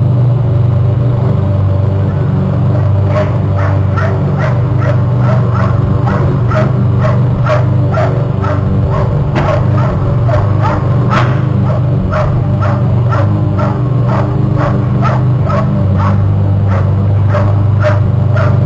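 An animal calling over and over in short, sharp barks, about two to three a second, starting about three seconds in and keeping on, over a steady low hum.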